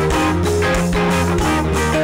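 Live rock band playing: electric guitar and drums with a steady beat.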